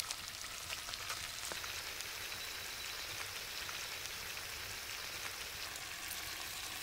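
Chicken pieces and diced vegetables searing in hot fat in a cast-iron cauldron: a steady sizzling hiss with small scattered crackles and pops.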